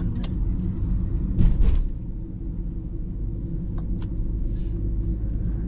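Steady low road and engine rumble inside a moving car, with a brief louder swell of noise about a second and a half in.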